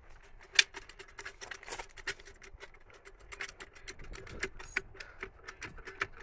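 A run of irregular light clicks and knocks, one sharper knock about half a second in, over a faint steady hum.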